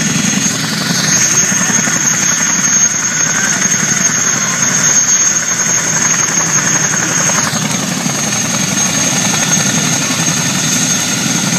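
Boeing CH-47 Chinook tandem-rotor helicopter running, its twin turboshaft engines giving a steady high whine over dense rotor noise. The high end is fuller from about a second in and eases back at about seven and a half seconds.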